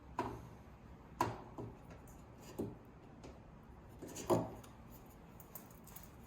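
About five separate knocks and clunks of sink strainer parts being handled and fitted into the drain, the loudest a little after four seconds in.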